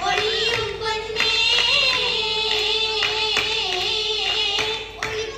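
Oppana song: girls' voices singing a slow, held Mappila-style melody, with occasional hand claps from the dancers.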